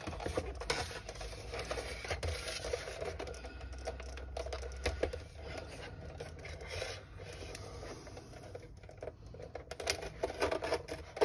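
Plastic housing of a VW Golf Mk6 VDO instrument cluster being handled and its locking tabs worked loose with fingers and a small screwdriver: light scratching, scraping and small irregular plastic clicks, busier near the end.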